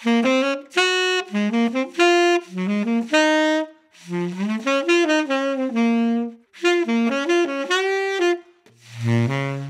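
Solo tenor saxophone playing a slow melodic line in four short phrases with brief breaths between them, the last phrase dipping to low notes.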